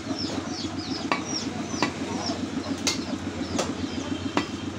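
Butcher's cleaver chopping beef on a wooden log block: about five sharp chops, roughly one a second.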